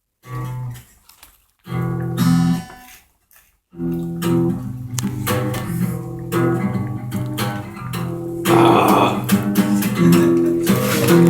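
A guitar being played with plucked notes and chords. It stops and starts a few times over the first few seconds, then plays on without a break.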